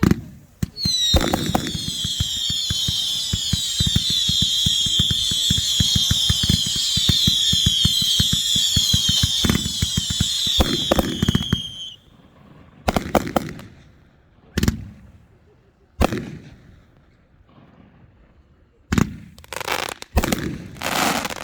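Consumer fireworks: about eleven seconds of rapid crackling pops with shrill whistles screaming over them, cutting off suddenly, then a handful of separate bangs and short crackling bursts a second or two apart.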